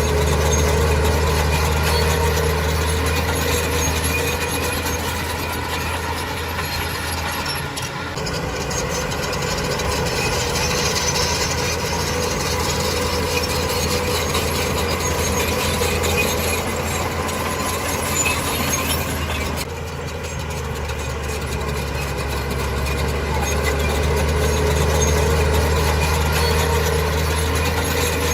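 Heavy diesel engine of an earthmoving machine running steadily, with a deep, constant hum. The sound drops briefly and changes about eight seconds in and again near twenty seconds.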